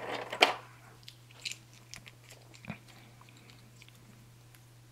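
Small plastic board-game miniatures clicking against each other and the plastic tray as a hand picks a handful out of the box, in a few scattered light clicks.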